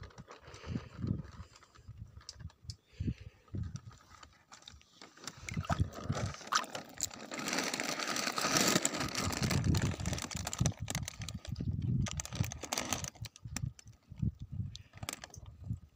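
Pond water splashing and sloshing, loudest through the middle stretch. Scattered clicks and low knocks come before and after it.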